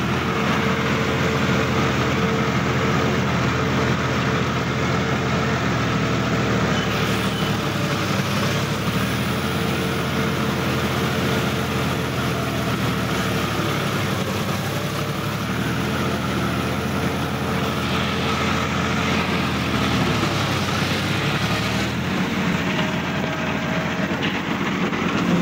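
Sonalika DI-50 RX tractor's diesel engine running steadily under load, pulling through a flooded, muddy rice paddy. Its pitch sags and picks up again a few times.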